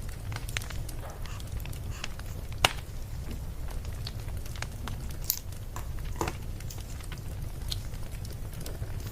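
Burning firewood crackling, with scattered small snaps and a sharp pop about two and a half seconds in, over a steady low rumble of the fire.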